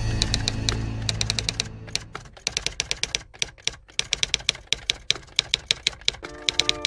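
Typewriter sound effect: quick runs of key clacks, several a second, with short pauses between runs. Music fades out over the first two seconds, and a new plucked-note tune starts near the end.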